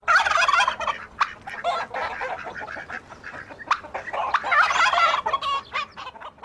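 Turkey gobbling: a run of rapid, warbling gobbles with short breaks, loudest at the start and again around the middle.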